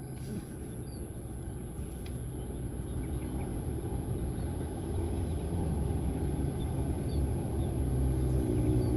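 A motor's low, steady rumble that grows gradually louder, as if approaching, with a few faint bird chirps.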